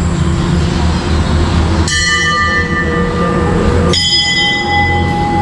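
Temple bell struck twice, about two seconds apart, each strike ringing on in several clear, high tones over a steady low rumble.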